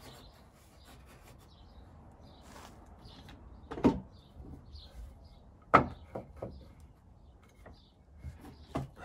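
Knocks and taps on a timber climbing frame as it is handled, with two sharp loud knocks about four and six seconds in and several lighter taps.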